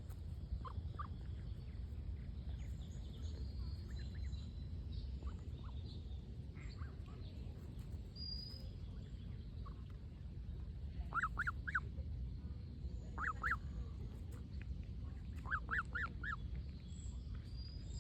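Goose calls: three runs of two to four short, quick calls in the second half, over a steady low rumble. Faint small-bird chirps are scattered through.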